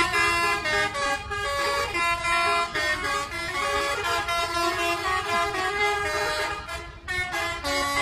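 Telolet horns on two coaches playing melodic tunes back and forth and over each other: a quick run of changing horn notes with a short break about seven seconds in.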